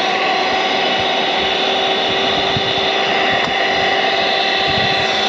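Electric hand mixer running at a steady speed, its beaters whisking beaten egg whites in a steel bowl as egg yolk is mixed in: an even motor whine.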